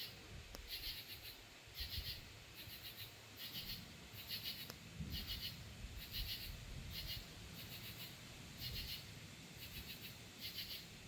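Insects chirping in rhythmic pulsed bursts, about one and a half a second, with a faint low rumble underneath.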